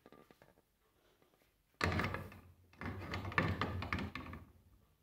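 Aluminium pot being set onto a gas stove's metal grate: knocking and scraping about two seconds in, lasting around two seconds, after a few faint handling sounds.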